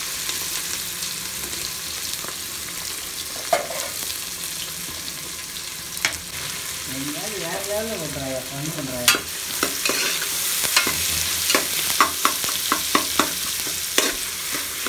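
Chopped onions sizzling in hot oil in an aluminium pressure cooker, frying in the first stage of a mutton kulambu. In the last third a ladle stirs them, with frequent sharp clicks and scrapes against the pot.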